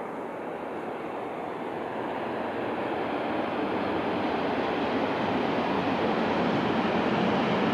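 A Tohoku Shinkansen bullet train running at speed on an elevated viaduct, a steady rushing noise that grows steadily louder as it approaches.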